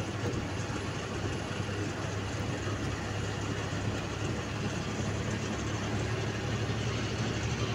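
Bus engine running steadily with road noise while under way, heard from inside the driver's cab: a constant low drone with no breaks or gear changes.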